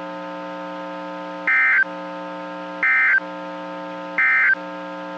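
NOAA Weather Radio SAME/EAS end-of-message data signal: three short, warbling digital data bursts, each about a third of a second, spaced a little over a second apart. Under them runs a steady electrical buzz.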